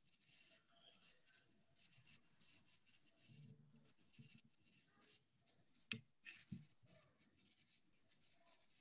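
Near silence with faint rubbing and handling of fly-tying thread at the vise while a dubbing loop is formed, and two soft clicks about six seconds in.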